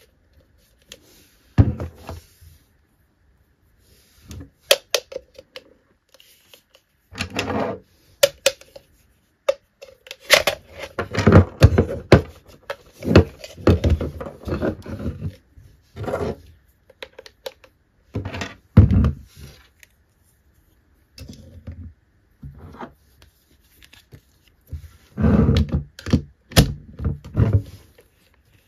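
Hard plastic Mrs. Potato Head parts being handled and pushed into the toy's plastic body: irregular clicks, knocks and rattles, busiest in the middle and again near the end.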